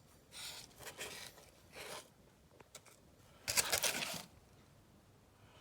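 Packaging being handled: a few short rustles and crinkles, the loudest and longest about three and a half seconds in.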